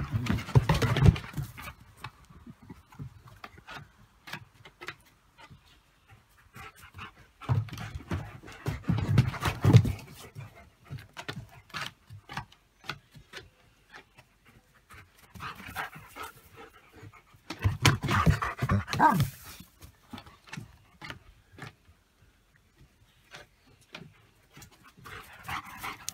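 German shepherd dogs panting close by in several bursts of a second or two, with quieter stretches in between.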